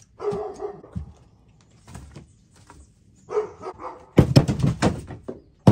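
A dog barks twice, then split arbutus firewood clatters as pieces are tossed off the truck's load, a quick run of hard wooden knocks for about a second and a half near the end.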